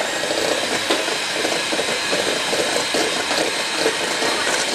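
Electric mixer running steadily, beating eggs and sugar in a bowl while the sugar dissolves into the egg.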